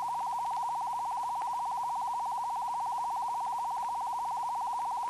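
A steady electronic tone, held at one pitch with a fast, even flutter, like a sound effect on an old film soundtrack.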